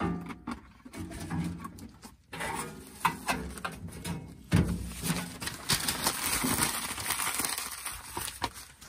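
Split wood kindling knocking against the metal of a small wood stove as pieces are set inside, followed by newspaper rustling and crinkling as sheets are handled for fire-starting.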